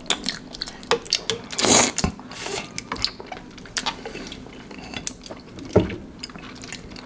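Close-miked eating of cheesy instant noodles: noodles drawn up with melted mozzarella being slurped and chewed, giving a run of irregular mouth clicks with a short slurp about two seconds in.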